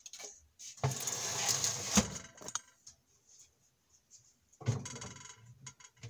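Metal oven tray lined with aluminium foil scraping and rattling as it slides into the oven, ending in a sharp knock about two seconds in. A shorter, quieter clatter comes near the end.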